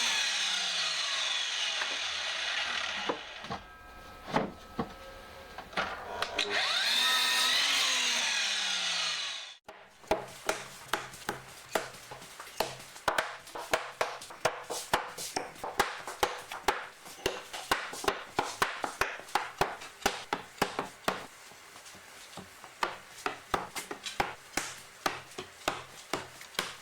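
Two cuts with a power mitre saw through redwood: each time the motor spins up, the blade cuts and the motor winds down. After an abrupt change comes a long run of quick, sharp wooden clicks and knocks, several a second.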